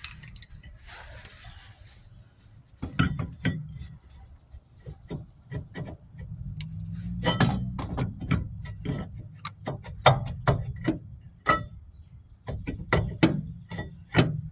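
Scattered metallic clicks, clinks and knocks of hand work on a rear drum brake as the star-wheel adjuster is turned and the brake drum is handled. The sharp clicks come more often in the second half.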